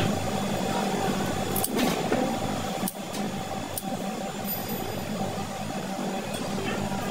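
Kitchen scissors snipping through the shell and legs of a giant freshwater prawn, a few short sharp snips, over a steady low hum.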